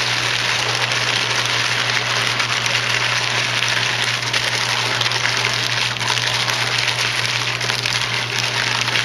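Parchment paper crinkling and rustling as it is folded by hand, a dense run of fine crackles over a steady low hum.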